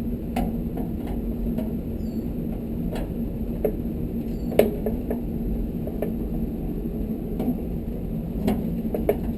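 Irregular light clicks and knocks of a long screwdriver working at small sheet-metal screws inside a tankless water heater's cabinet, the sharpest about four and a half seconds in, over a steady low hum.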